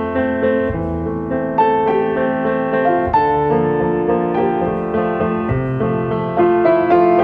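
Background piano music playing slow, sustained chords, with new notes coming in every second or so.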